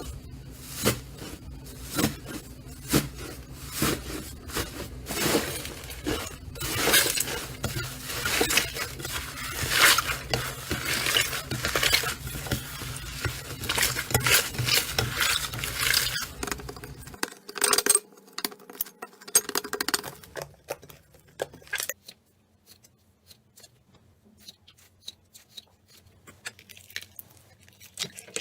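Slime being squeezed and worked by hand: a dense run of sticky clicks, pops and crackles, busiest in the middle, then thinning to scattered quieter clicks for the last several seconds.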